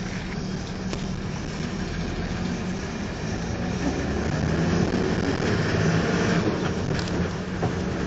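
A motor vehicle driving slowly, heard from on board: its engine hums steadily under road noise, a little louder about halfway through.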